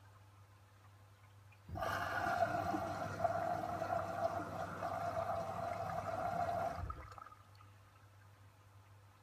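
LG front-loading washing machine drum tumbling wet laundry for about five seconds: water sloshing and splashing over a steady motor whine, starting abruptly and stopping about seven seconds in.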